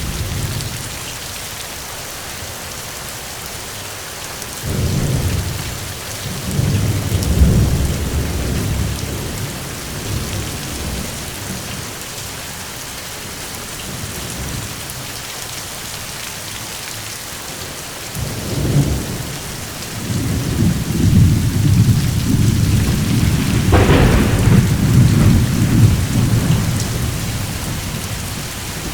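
Steady rain with rolling thunder: a deep rumble about five seconds in, then a longer one from about eighteen seconds that peaks with a sharper crack near the end.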